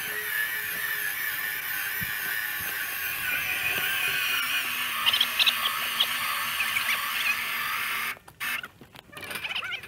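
12-volt Harbor Freight 2500 lb electric winch on a truck-mounted crane, running steadily as it hoists a log, then cutting off abruptly about eight seconds in.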